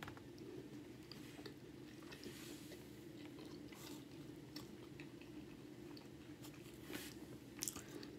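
Close-miked chewing of a soft chili cheese hot dog: faint wet smacks and clicks of the mouth, with a few louder ones about seven seconds in, over a steady low hum.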